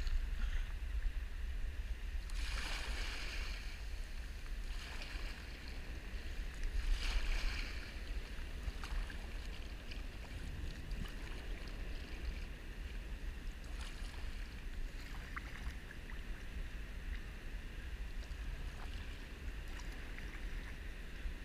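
Deep, continuous rumble of a tidewater glacier calving, heavier over the first several seconds and then easing. Water lapping and splashing against a kayak hull swells up twice, about three and seven seconds in.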